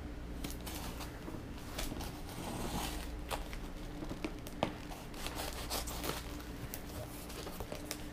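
Folding knife slitting the tape and wrapping on a small cardboard package, with scattered scraping, tearing and rustling as the wrapping is cut and pulled, and a longer rasping cut about two to three seconds in.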